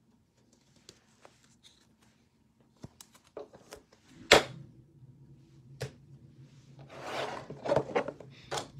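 Trading cards and a cardboard hanger box being handled on a tabletop: a few light clicks, a single sharp thunk a little past the halfway point, then cardboard rustling and sliding near the end.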